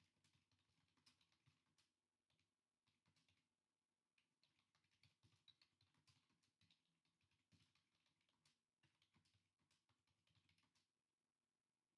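Very faint computer-keyboard typing: quick, irregular runs of key clicks broken by short pauses.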